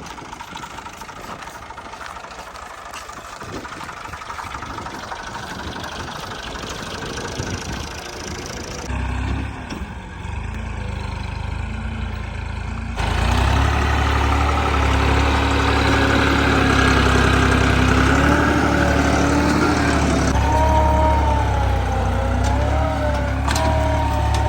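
Diesel engine running, its steady hum growing louder, with sudden jumps in loudness about nine and thirteen seconds in. A wavering engine tone rises and falls slightly through the second half.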